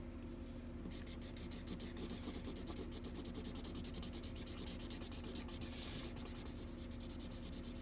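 Felt-tip marker scratching on paper in rapid short back-and-forth strokes, starting about a second in, as zigzag shapes are drawn and coloured.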